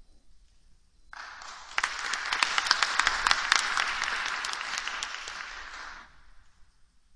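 Audience applauding. It starts about a second in, builds quickly and dies away about six seconds in.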